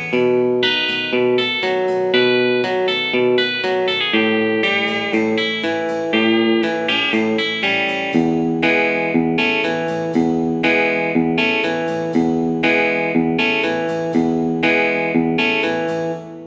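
Guitar playing rhythmic chords in a steady, even pattern of repeated strikes, beginning to die away at the very end.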